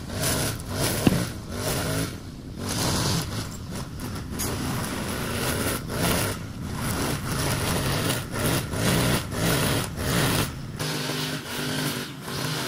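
An engine running, its level rising and falling every second or two.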